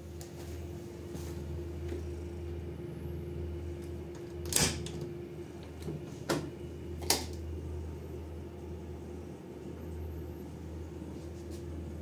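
A steady low hum with three short, sharp knocks between about four and seven seconds in, the first and last the loudest.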